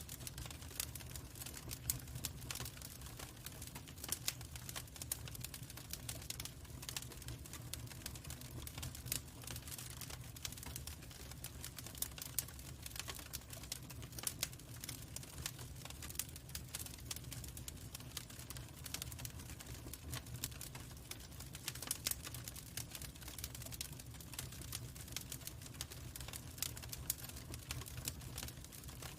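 Log fire crackling: a steady stream of irregular sharp snaps and pops over a steady low rumble.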